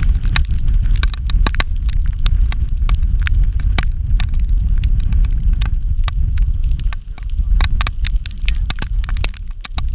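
Wind buffeting the camera's microphone: a steady low rumble with many sharp crackles and clicks through it, easing briefly twice near the end.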